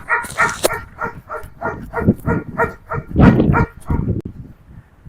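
Rottweiler vocalising in short, rhythmic whines, about four a second, with one louder burst about three seconds in.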